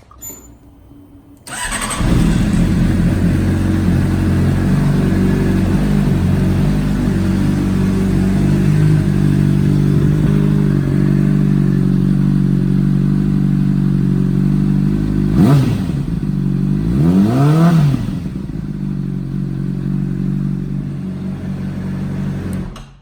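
Honda CBR600RR's inline-four engine, breathing through a new budget Delkevic slip-on exhaust, starting about a second and a half in and idling. It is blipped twice, a short rev and then a longer one, past the middle, settles back to idle, and is shut off just before the end.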